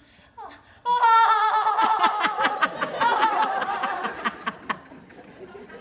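A woman's loud, theatrical sexual moan performed on stage. About a second in, it starts as a high, held cry that breaks into quick rhythmic pulses, about five a second, and it fades out near the end.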